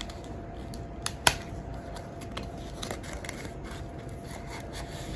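Fingers picking at and peeling open a small paper door on a cardboard advent calendar: light paper rustling and scratching, with a sharp click a little over a second in.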